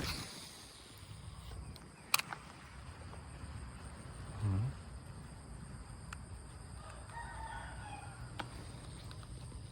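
A rooster crowing in the distance: one drawn-out crow near the end. About halfway through there is a short, louder low sound that sweeps in pitch, and a sharp click comes about two seconds in.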